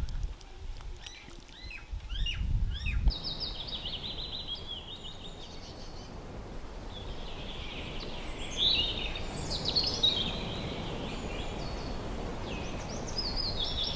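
Birds chirping and calling over a steady outdoor hiss. The background changes abruptly about three seconds in, and the calls carry on after the change.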